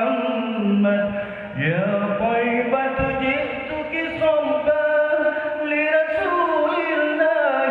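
A man's voice chanting in Arabic in the ornamented Middle Eastern muezzin style, holding long notes that slide and turn between pitches. It dips briefly about a second in, then goes on without a break.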